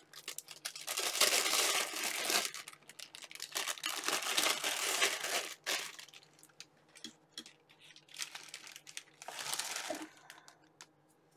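Clear plastic zip-lock bag crinkling as it is handled and moved, in three stretches of a second or two with small clicks between, quieter in the last few seconds.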